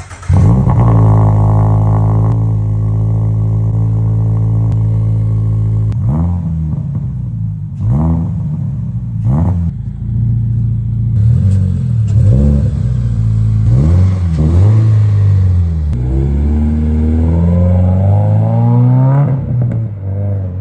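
2023 Toyota GR86's 2.4-litre flat-four running through a Spec-D Tuning catback exhaust: held steady for about six seconds, then several short revs blipped and dropped, then one longer rev that climbs for about three seconds before falling back near the end. The exhaust has a rasp, which the owner blames on poor-quality gaskets.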